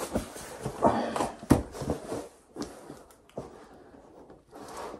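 Cardboard laptop box being lifted and shifted by hand: several knocks and scrapes in the first two seconds, then fainter rustling and a couple of light taps.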